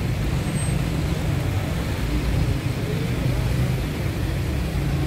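Steady low rumble of road traffic and vehicle engines on a city street.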